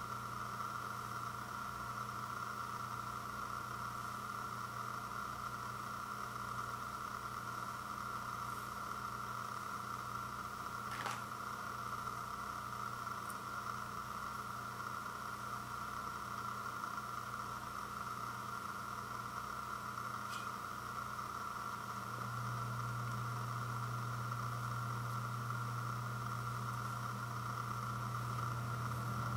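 Steady background hum and hiss, its low tone growing louder about two-thirds of the way in, with a faint click near the middle.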